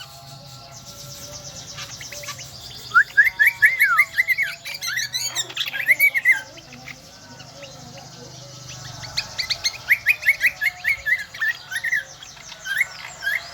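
A kecial kombo (cucak kombo) songbird singing a shrill, rapid series of chirps and slurred whistled notes. The song comes in two loud bursts, one a few seconds in and one in the second half.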